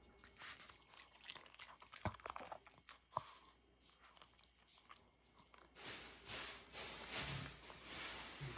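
Shih Tzu chewing a bite of food, a run of small crunching clicks for about three seconds, then a pause; a softer, steadier rustle follows from about six seconds in.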